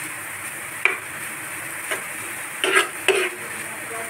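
Metal spoon stirring chopped onion, capsicum and tomato in a frying pan on low flame, the vegetables sizzling gently underneath. Several scrapes and knocks of the spoon against the pan, the loudest two coming about three-quarters of the way through.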